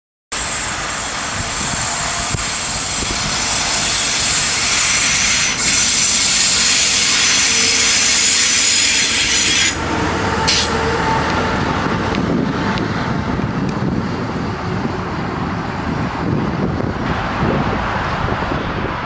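Container freight trains running past on electrified track: the wagons roll by with steady wheel-and-rail noise and a high wheel squeal. About ten seconds in it cuts to another freight train passing, heard as a lower rumble without the squeal.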